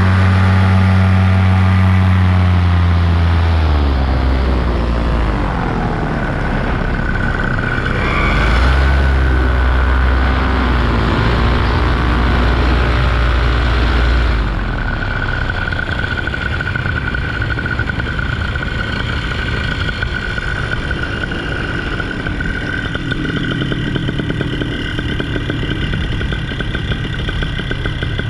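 Paramotor engine running at high power, its pitch sagging and then climbing again, then throttled back suddenly about halfway through to a lower, rougher steady running with a thin steady high tone over it.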